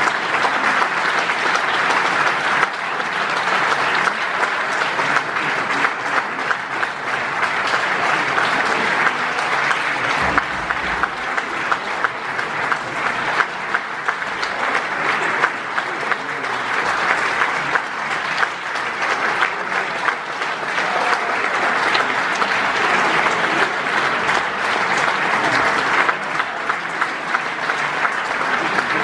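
Audience applauding: dense, continuous clapping that swells and eases a few times.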